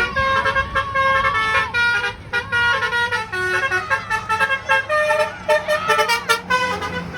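Bus telolet horn, a set of tuned air horns, playing a tune of held notes that change pitch in quick succession, over a low rumble.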